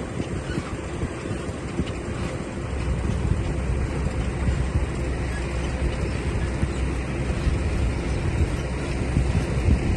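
A heavy machine's engine running steadily, a low rumble that gets a little louder about two and a half seconds in.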